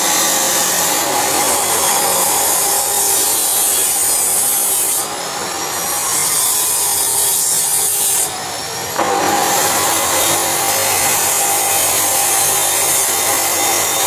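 Steady hiss of a lit gas welding torch flame, dipping briefly twice.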